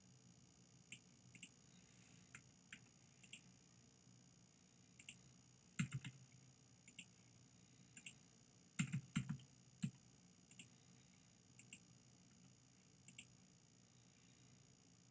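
Scattered clicks of a computer mouse and keyboard keys, single and in pairs, with clusters of louder clicks about six and nine seconds in, over a faint steady hum.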